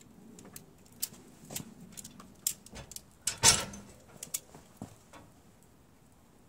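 Metal hooks and buckles of yellow ratchet tie-down straps clicking and rattling as they are handled against a steel motorcycle wheel cradle, with a louder clatter about three and a half seconds in.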